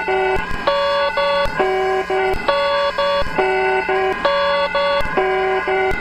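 Electronic Emergency Alert System alarm tone, looping: phrases of several steady pitches stacked together, each broken into short segments, the pattern repeating about every two seconds.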